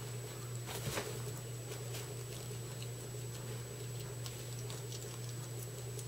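Guinea pigs chewing leafy greens: rapid, irregular small crisp clicks, with a louder cluster about a second in, over a steady low hum.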